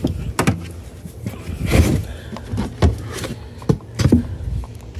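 Handling noises: a handful of separate knocks and thuds as the carpeted trunk floor panel is lifted and the battery tester's clamp leads are moved over the battery.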